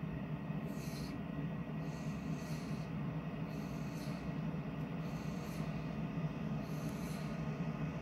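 Great Dane breathing noisily through its nose while lying down, a short hissing breath about every second and a half, over a steady low hum.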